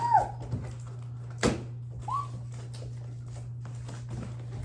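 A dog whines briefly at the start and again about two seconds in, with a sharp knock about a second and a half in, over a steady low hum.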